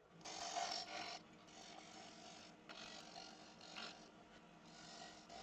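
Wood lathe turning a small beech blank while a bowl gouge cuts the outside, a hissing cut. The cut is strongest for about the first second, then comes back more lightly in short passes.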